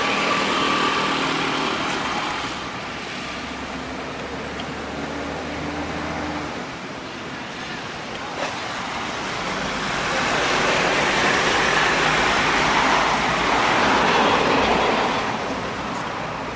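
Outdoor background noise: a low steady hum for the first several seconds, then a broad rushing noise that swells and fades over about five seconds, like road traffic going by.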